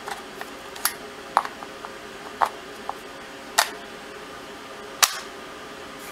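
Umarex T4E HDR .68 caliber paintball revolver being handled: about half a dozen sharp clicks of its parts, spaced unevenly, over a faint steady hum.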